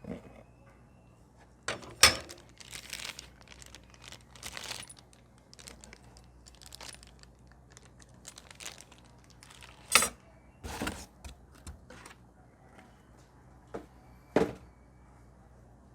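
Unboxing handling: packaging rustling and crinkling, with a few sharp clicks and knocks as parts are handled and set down, the loudest about 2, 10 and 14.5 seconds in.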